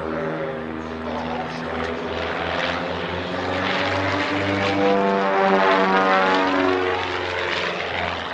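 Two Pitts Special aerobatic biplanes flying in formation, their piston engines and propellers droning together. The engine note rises and then falls, loudest about five to six seconds in.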